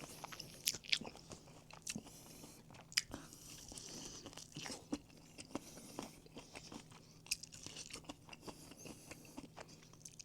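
Close-up chewing of crispy fried chicken, with irregular sharp crunches of the coating throughout.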